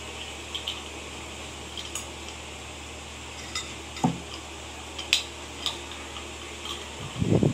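Scattered light clicks and clinks of small hard objects being handled, over a steady background hum, with a louder low rumbling knock near the end.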